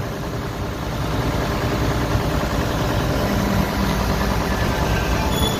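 Case 1070 tractor's diesel engine running steadily, with a low steady hum joining in about three seconds in.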